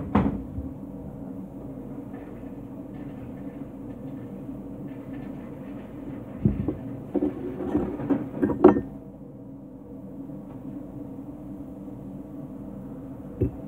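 Knocks and clatters of a knife, fork and food being handled at a plate, in a cluster of sharp knocks about two-thirds of the way through and once near the end, over a steady low machine hum.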